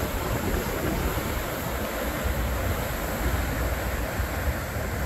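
Ocean surf breaking and washing over a rocky shore as a steady rush, with wind buffeting the microphone in low rumbling gusts.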